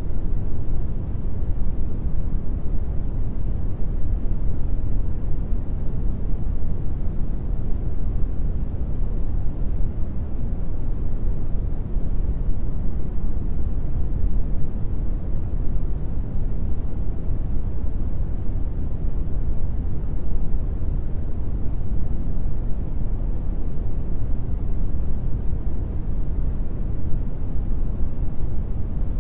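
Brown noise: a steady, even rumble with most of its energy in the low end and little treble, unchanging throughout.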